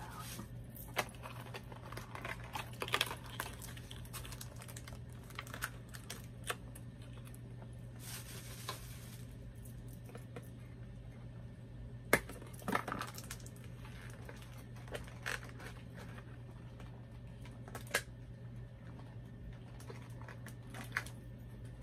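Hands handling a cardboard toy box and its plastic packaging: scattered clicks, taps and crinkling, with a brief rustle about eight seconds in and the sharpest tap about twelve seconds in. A steady low hum runs underneath.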